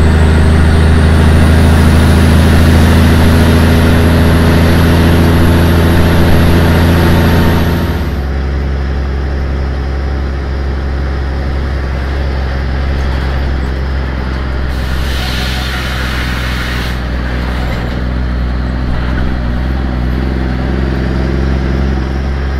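Truck engine running steadily on the highway, with a faint high whine rising slowly for the first eight seconds. About eight seconds in, the engine sound drops sharply and the whine stops, as when the throttle is eased off. It then carries on more quietly, with a brief hiss about fifteen seconds in.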